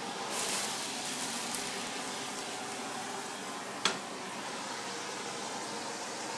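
Handheld gas torch hissing steadily while cognac sizzles in a steel skillet being flambéed, with a surge of hiss about half a second in. A single sharp clack just before four seconds in, as the pan is set back down on the cooktop.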